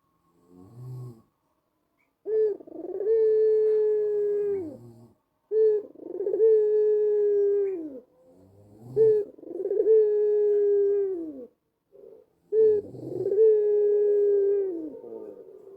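White Barbary dove (domestic ringneck dove) cooing: four long coos, each opening with a short rising note and then held steady before dropping at the end, about every three seconds, with a soft short note before the first and another between the third and fourth.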